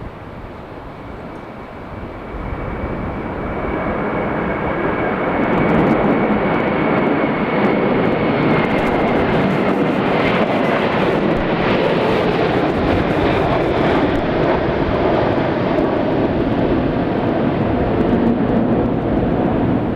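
SAS Airbus A340's four CFM56 turbofan jet engines passing on its landing, growing louder over the first few seconds, then a steady loud jet noise. A thin engine whine sounds above it and dips slightly in pitch about eight seconds in.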